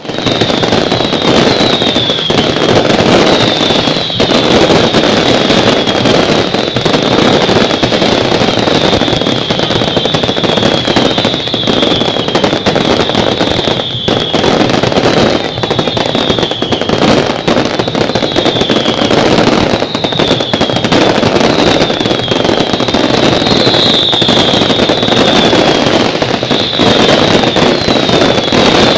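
Fireworks going off in a dense, continuous crackle of pops, with short falling whistles repeating about once a second.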